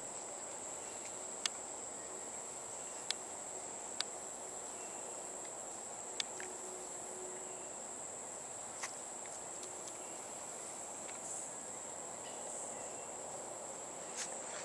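Steady high-pitched insect chorus, like crickets, over the even rush of a flowing creek. A handful of sharp clicks break in at irregular moments.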